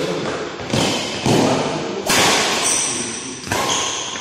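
Badminton rackets striking a shuttlecock during a doubles rally: about four sharp hits, roughly a second apart, each echoing and fading slowly in a large metal-walled hall.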